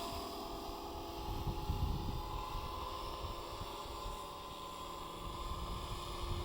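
Electric RC scale helicopter (Align T-Rex 450 mechanics in a Hughes MD 500E fuselage) in flight, its motor and rotors giving a steady whine of several held tones. Gusty wind buffets the microphone with low rumbles, strongest about one and a half to two seconds in.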